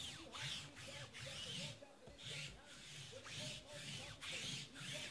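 Faint, indistinct background speech in short broken phrases.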